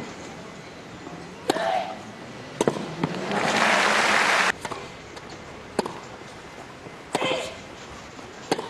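Tennis rally: racket strikes on the ball about every second and a half, several followed by a player's grunt on the shot. Partway through, a loud hiss-like burst of noise lasts about a second.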